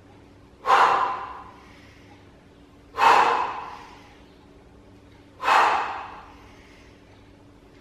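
Three sharp, forceful breaths huffed out by a man lifting a kettlebell, one per Romanian deadlift repetition, about two and a half seconds apart, each cutting in suddenly and trailing off over about a second. They follow the pattern of holding the breath through the hinge and releasing it near the top of the lift.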